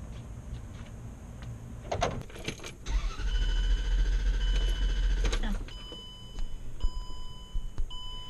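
A few clicks, then an electric motor in the car spins up, runs steadily for about two and a half seconds with a low rumble, and winds down. After it, a vehicle warning chime beeps over and over, about once a second.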